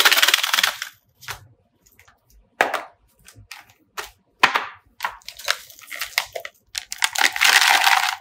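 Snack containers handled and shaken: a rattling burst as a Pringles can is swung in, a string of short clacks and knocks as cans and a plastic tub are set down, and a longer rattle near the end as the plastic tub of candy cubes is shaken.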